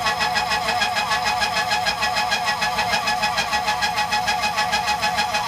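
Tormach PCNC 1100 CNC mill slotting aluminum with a 4-inch side milling cutter: a loud, steady cutting noise that pulses evenly several times a second, with ringing high tones over it.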